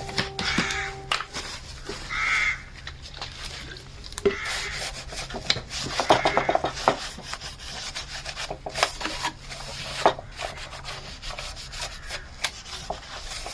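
Irregular hand rubbing and scuffing on a car body panel, with scattered light knocks, as the surface is prepped so the fibreglass will adhere.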